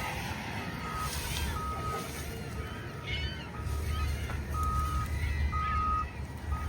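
Vehicle reversing alarm beeping about once a second, over a low engine rumble.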